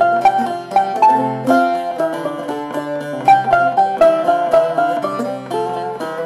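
Instrumental interlude on bağlama and balalaika playing together, with no singing: a melody of short plucked and picked notes over a sustained lower drone.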